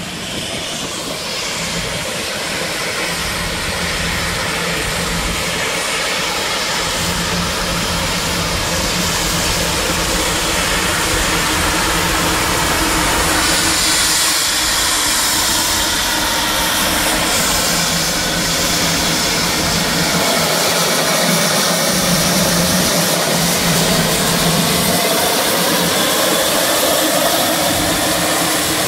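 Narrow-gauge steam locomotive standing with steam hissing steadily, growing louder over the first dozen seconds as it is approached and brighter from about halfway through.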